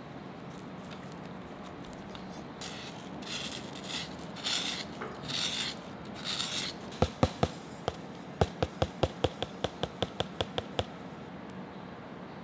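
Dry ingredients (salt and dry yeast) being poured onto bread dough in a glass bowl: a few short hissing pours of fine grains, then a quick regular run of light clicking taps, about four or five a second.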